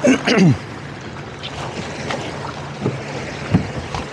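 Towboat's twin outboard engines running underway, a steady low hum under wind buffeting the microphone and water rushing past the hull. A short, loud sound falling in pitch comes right at the start, and a few sharp knocks follow later.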